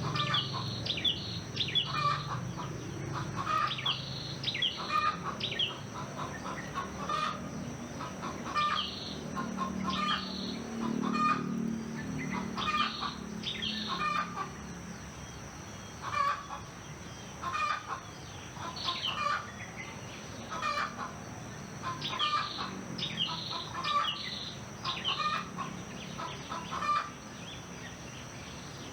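Rural farmyard ambience: chickens clucking, with small birds chirping in short repeated calls about once a second.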